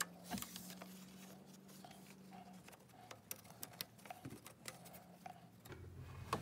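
Faint scattered clicks and light knocks of hands and a tool working a serpentine belt onto the engine pulleys, over a faint low hum.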